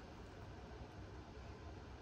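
Quiet room tone: a faint, steady hiss with no distinct sound.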